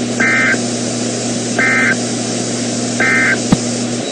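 Three short two-tone digital data bursts about 1.4 s apart: the EAS/SAME end-of-message code that closes a NOAA Weather Radio alert. They sound over steady radio hiss and a low hum, with a single click about three and a half seconds in.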